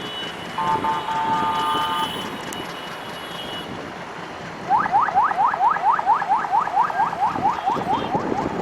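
A short steady electronic tone in the first two seconds, then a loud, rapid run of rising chirps, about four a second, like an alarm or warning signal.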